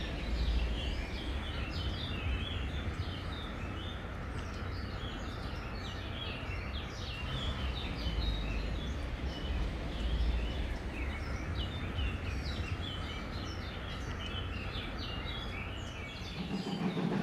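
Many small birds chirping and twittering, with short high calls scattered throughout, over a steady low outdoor rumble.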